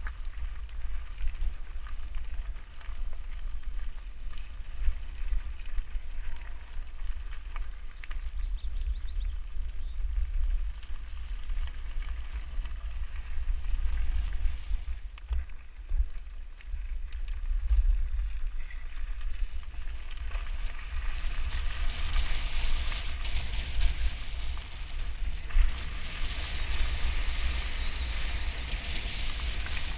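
Wind rumbling on an action camera's microphone while riding a mountain bike, with the hiss of tyres rolling over a gravel trail. The hiss grows louder about two-thirds of the way through.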